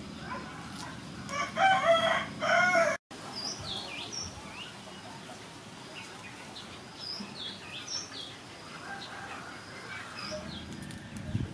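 A rooster crowing once, the loudest sound, starting about a second in and cut off abruptly at about 3 s. After that, small birds chirp in short, high, rising and falling calls.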